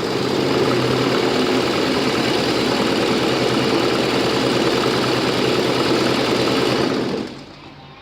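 Butterfly sewing machine running steadily at speed, winding thread onto the bobbin. It stops about seven seconds in.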